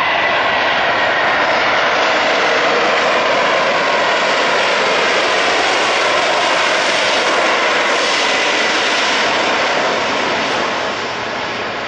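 Virgin Atlantic Airbus A340-300's four CFM56 turbofans running as the airliner taxis past: a steady jet rush with a faint high whine. The sound eases slightly near the end.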